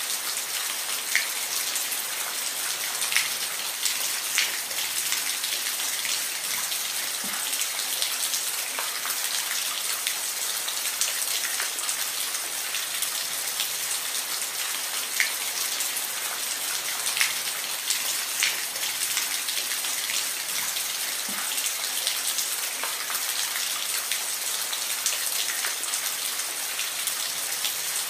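Steady rain falling, a dense even hiss with scattered louder individual drops ticking on a surface every second or two.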